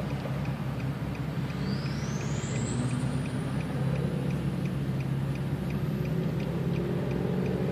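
Infiniti G35x's 3.5-litre V6 heard from inside the cabin, a steady low drone. A thin, faint high whine rises slowly in pitch over a few seconds.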